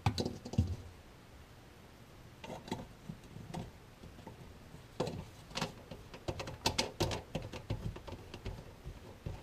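Light clicks and scrapes of plastic sink drain parts being handled: a plastic extension tube carrying a slip nut and washer is pushed up onto the sink tailpiece and the nut is threaded on by hand. The sounds come in scattered bunches, with a quieter stretch between about one and two and a half seconds in.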